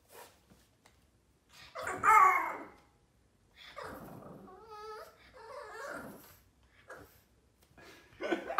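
Four-month-old Boston terrier puppy vocalising in a tantrum: a loud yap about two seconds in, then a few seconds of grumbling, growling whine with a wavering pitch, and another yap starting near the end.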